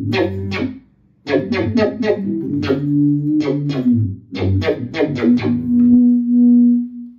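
Electric guitar played through a Digitech Dirty Robot synth pedal with its sensitivity knob all the way down: runs of quickly picked synth-like notes, a short pause about a second in, and a held low note near the end that fades out.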